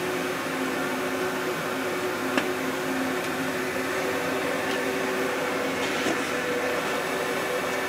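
Small electric motor running steadily with an even whir and hiss, with a single sharp click about two and a half seconds in.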